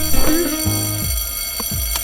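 Bell-like electronic ringing, with many steady high tones over a simple tune of short pitched notes, cutting off abruptly at the end.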